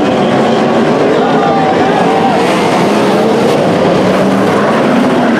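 A pack of sprint cars racing on a dirt oval. Several V8 engines run loud and overlapping, their pitches rising and falling as the cars throttle on and off and sweep past.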